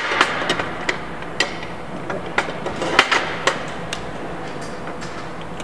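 Aluminium skylight frame extrusions clacking against each other and the metal worktable as they are fitted together by hand: an irregular series of sharp metal clicks and knocks.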